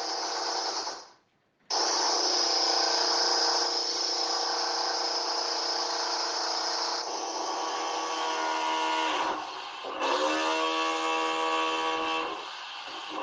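Electric drill running in long bursts with a steady high whine. It stops dead about a second in and starts again, and twice later its pitch sags as it slows before picking back up.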